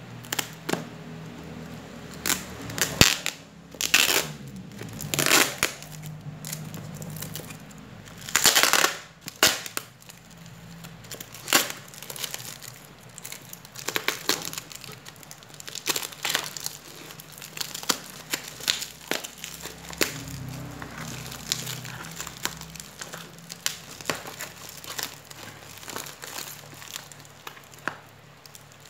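Scissors snipping and hands crinkling and tearing black plastic wrap and tape off a small parcel: irregular bursts of crackles and sharp snaps.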